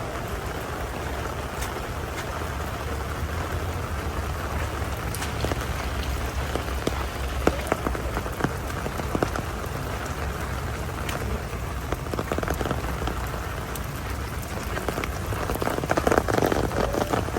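Heavy rain falling steadily on hard surfaces, with scattered sharp drop hits. It swells louder for a moment near the end.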